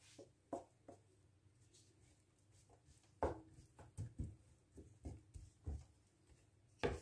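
Wooden spatula stirring diced onion in a frying pan, with faint knocks and scrapes against the pan. A few come in the first second, then after a lull a run of about two strokes a second begins about three seconds in.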